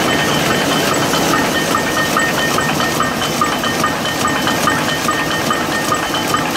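Rapier loom with electronic jacquard running at speed: a loud, steady mechanical clatter with short metallic clicks repeating rapidly and evenly with each weaving cycle.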